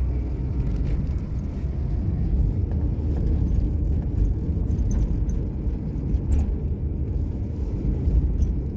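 Car driving along a town street, heard from inside the cabin: a steady low rumble of engine and tyre noise.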